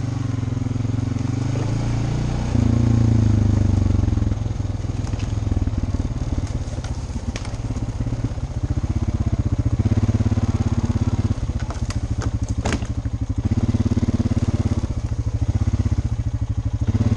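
ATV engine running as the quad is ridden, its note rising and falling with the throttle, with a few sharp cracks about two-thirds of the way through.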